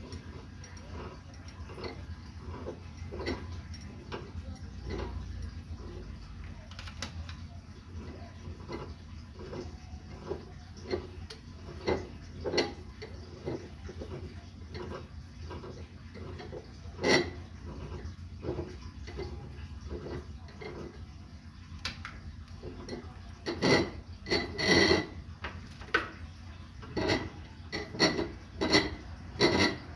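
Glass bottle clicking and clinking in a bottle-cutting jig: a regular ticking about twice a second, with a single loud clink about seventeen seconds in and a run of louder, quicker clinks over the last several seconds.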